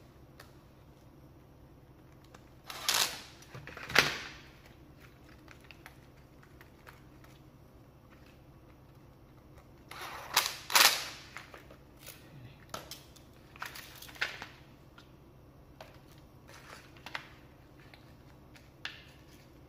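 Makita TD110D 12-volt impact driver loosening screws in short bursts of rapid hammering: two brief bursts about three and four seconds in, and a longer run of them around ten to eleven seconds. Lighter clicks and clatter of plastic and metal parts being handled follow.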